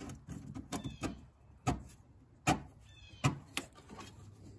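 Scattered sharp clicks and knocks of hands handling the metal fuel filter and its clamp and hoses in a car's engine bay, with a short high squeak about three seconds in.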